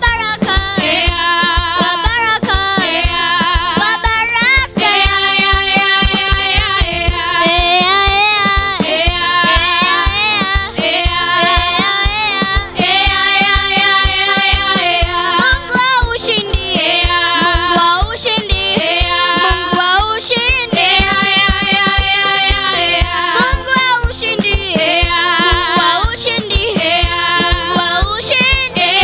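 Children singing a gospel praise song into microphones, a girl's voice leading, over music with a steady beat.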